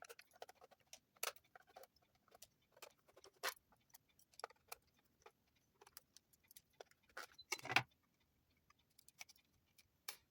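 Scattered small clicks and plastic handling noises as a Casio calculator's casing is opened to reach its coin-cell battery.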